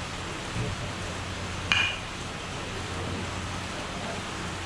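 Metal bat hitting a ball once, a sharp ringing ping a little under two seconds in, over steady background noise.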